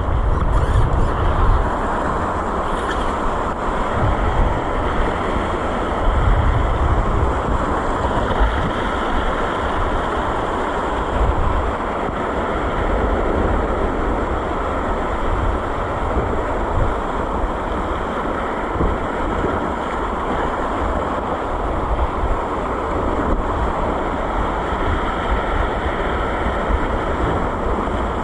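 Wind buffeting the microphone in gusts over the steady wash of sea waves.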